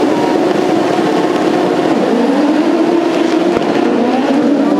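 Several autocross buggies racing flat out on a dirt track, their engine notes overlapping. The main engine note drops about two seconds in and then climbs again.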